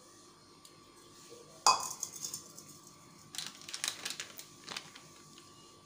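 A sharp clink against a stainless steel mixing bowl about one and a half seconds in, then a cluster of lighter clicks and taps from about three to five seconds in, while spices are added over fish pieces in the bowl.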